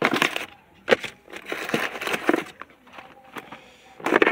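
Rustling and a few sharp clicks and knocks of things being handled close to the microphone, in irregular bursts, loudest at the start and near the end.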